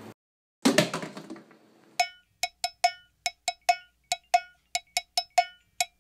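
A sharp slap, a high-five, with a brief rustle just under a second in, then from about two seconds a run of short, ringing percussion clinks, about four a second in an uneven rhythm, leading into a music track.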